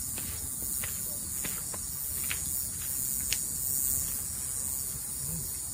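Steady high-pitched chorus of night insects, cricket-like, with a few faint scattered clicks.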